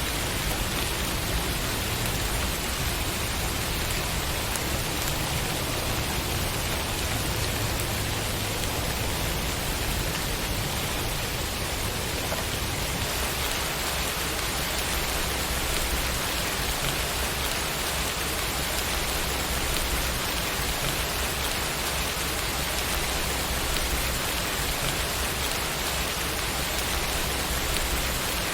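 Steady rain, an even continuous patter of raindrops on a surface.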